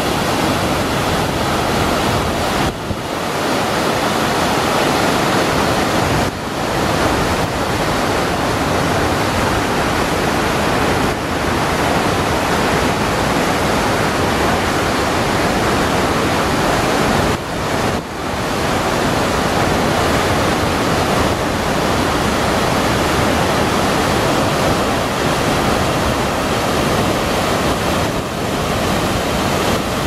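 Waterfall pouring into a foaming plunge pool: a loud, steady rush of water, with a few brief dips in level.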